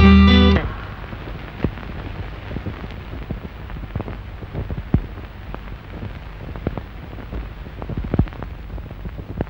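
Background film music ends about half a second in. After that there is a steady hiss with scattered irregular crackles and clicks, the surface noise of an old film soundtrack.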